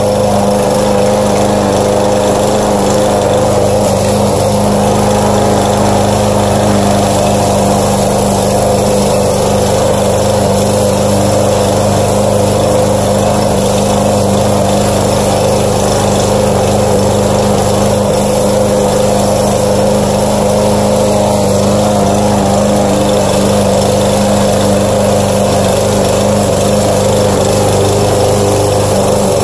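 Walk-behind rotary lawn mower's small petrol engine running at a steady, unchanging speed while it cuts grass.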